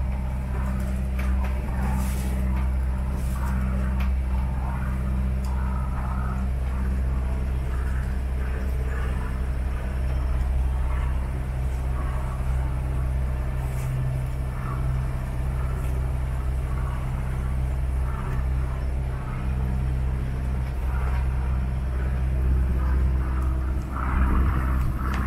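Motorboat's inboard engine running at a steady speed, heard on board as a constant low drone.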